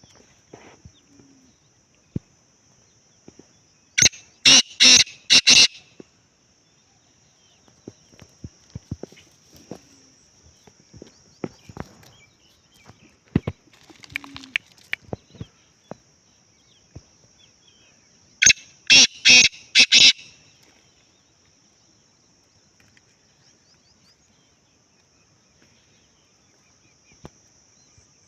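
Black francolin calling twice, about fourteen seconds apart. Each call is a loud, harsh, grating phrase of about six quick notes lasting a second and a half, over a steady high thin hum.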